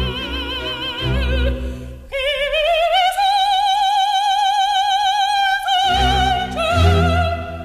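Operatic soprano singing with a wide vibrato on music, no speech. About two seconds in she steps up to a long high note held for nearly four seconds. Low accompaniment drops out under that note and comes back near the end.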